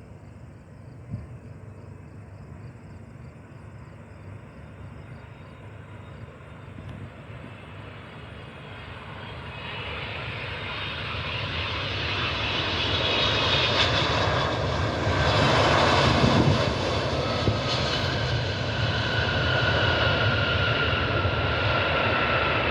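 Jet engines of a Boeing 767 freighter on approach, growing louder as it nears and passes, loudest about 15 seconds in, with an engine whine that drops in pitch near the end.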